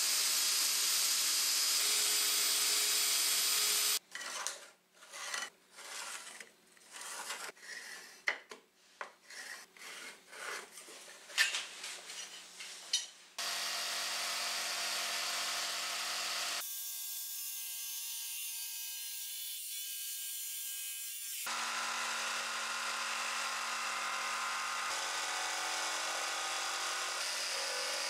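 An electric drill boring into a pine board, running steadily for about four seconds. Then a run of irregular short scrapes and knocks, followed by an electric jigsaw cutting through the board, running steadily with a motor hum.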